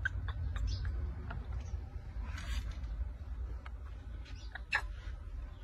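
Scattered short, high animal squeaks and chirps over a steady low rumble, with a brief hiss about two and a half seconds in.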